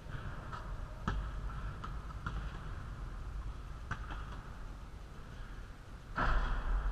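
Scattered thuds and taps from a basketball and sneakers on a gym floor, with a louder noisy stretch near the end.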